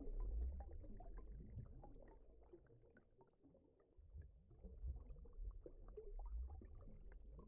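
Underwater ambience sound effect: a low rumble with faint, scattered bubbling pops. It fades away about three seconds in and swells again after about four seconds.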